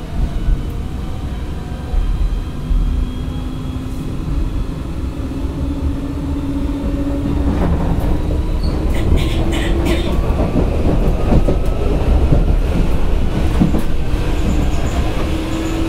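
Hanshin 5001-series 'Jet Car' electric commuter train running and picking up speed: a motor and gear whine rising slowly in pitch over the rumble of the wheels, with a few sharp clicks about halfway through.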